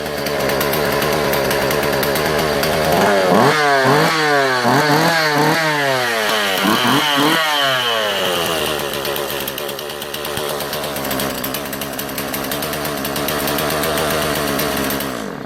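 Jonsered 2040 Turbo two-stroke chainsaw idling, then blipped through a quick series of revs about three seconds in, dropping back to idle after each, and settling back to a steady idle before it is shut off near the end. It revs cleanly and returns to idle quickly.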